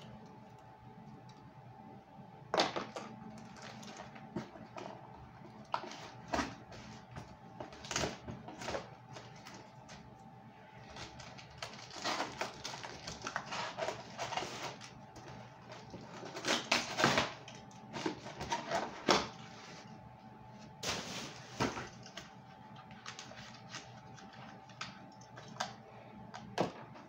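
Cardboard box and packaging being handled and pulled apart: irregular clicks, taps and rustling, busiest in the middle, over a faint steady hum.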